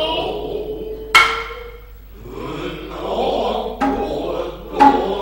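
Noh music: three sharp, ringing hand-drum strikes, the first about a second in and the other two near the end, among drawn-out vocal calls and chanting.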